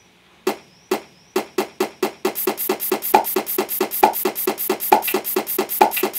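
Human beatboxing: sharp percussive mouth sounds, a few spaced strokes that come quicker and quicker, then about two seconds in a fast, even beat.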